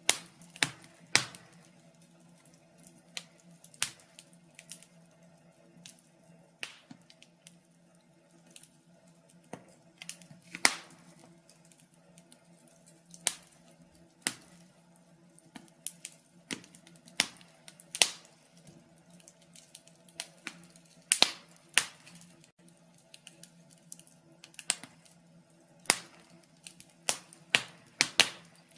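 Wood fire in a fireplace crackling: irregular sharp pops and snaps at uneven intervals, a few much louder than the rest, over a faint steady low hum.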